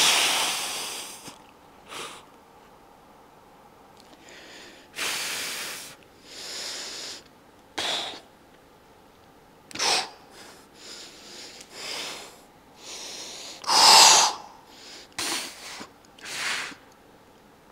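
A man's forceful breathing while he strains through bodybuilding poses: about a dozen short, hard exhalations and puffs at irregular intervals, the loudest right at the start and about 14 seconds in.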